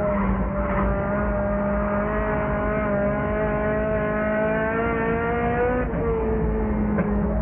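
Race car engine running hard as heard from inside the car, its pitch climbing steadily for about six seconds, then dropping briefly and abruptly before settling at a steady note.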